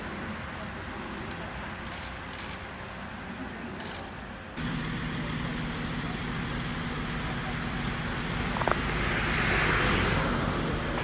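A motor vehicle's engine running steadily outdoors. About four and a half seconds in the sound jumps to a louder, steadier engine hum, and a hiss swells up briefly near the end.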